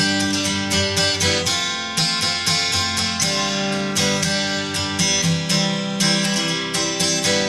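Background music: a strummed guitar playing a steady rhythm.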